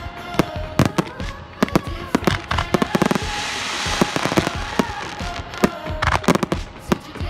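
Aerial fireworks display: a rapid, irregular string of loud bangs from bursting shells, with a stretch of dense hissing about three seconds in.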